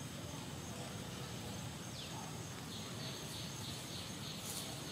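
Forest ambience of insects and birds: a steady high insect drone, a short falling call about two seconds in, then rapid, evenly repeated chirping from just under three seconds in, with a few faint clicks near the end.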